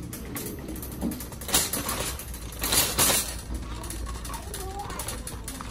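Shopping cart with a plastic basket on a metal frame being pushed along, its wheels and frame rattling and clicking, with two louder rattling surges about a second and a half and three seconds in.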